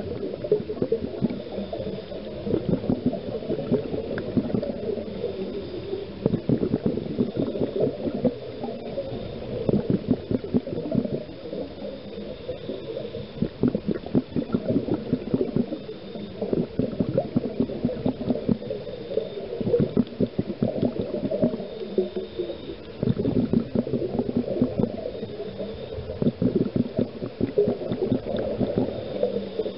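Underwater bubbling and gurgling from a scuba diver's exhaled breath, muffled and crackling, coming in uneven surges every few seconds.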